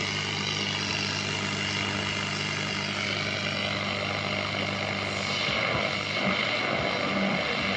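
Speaker of a 1953 Loewe Opta Meteor 526W tube radio giving steady static hiss over a low mains hum while the tuning knob is turned with no station coming in. About two-thirds of the way through, the hum fades and the noise shifts.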